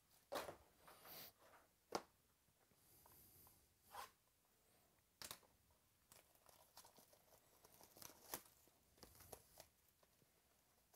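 Faint rustling and crinkling of cardboard card boxes and their wrapping as they are handled and opened, with a few sharp clicks and taps scattered through it.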